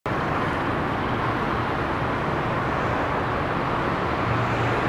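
Steady outdoor traffic noise, a continuous even rush of passing cars with no distinct events.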